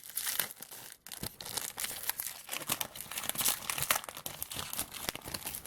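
Foil trading-card pack being torn open and crinkled by hand, a rapid irregular crackling of thin wrapper.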